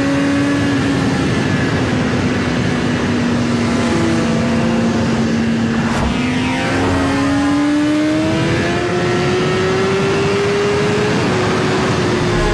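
A car running at speed, with steady loud engine and road noise. The engine tone holds, then climbs slowly through the second half, and the sound cuts off abruptly at the end.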